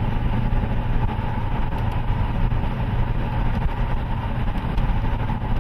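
Steady low rumble of a vehicle running, unchanging throughout.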